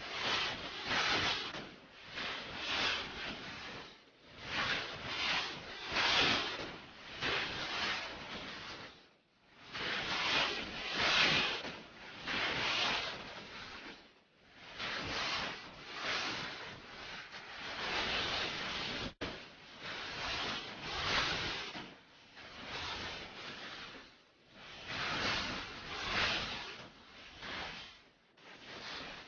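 Repeated swells of hiss, each a second or two long, separated by short near-silent gaps.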